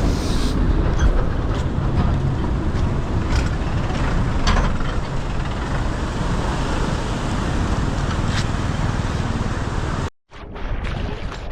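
Steady loud rush of fast-flowing floodwater with wind buffeting the microphone. It cuts out abruptly about ten seconds in, then returns quieter with a few knocks.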